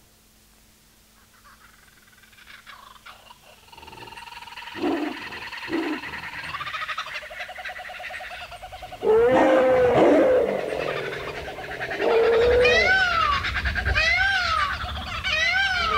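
Recorded wild animal calls, a mix of creatures fading in after a near-silent start. Near the end one call rising and falling in pitch repeats four times.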